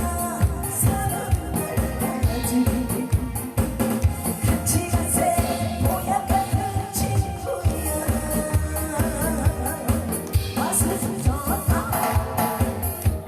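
Trot-style backing music played loud, with a regular drum beat and hand percussion under sustained melody lines.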